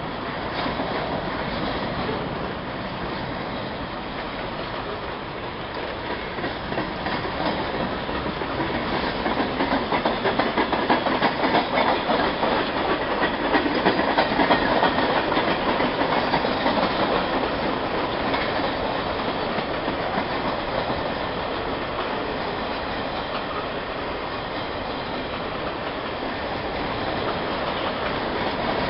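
Freight train's boxcars rolling past at close range: a steady rumble of steel wheels on rail with rapid clickety-clack, growing louder about a third of the way through and easing again later.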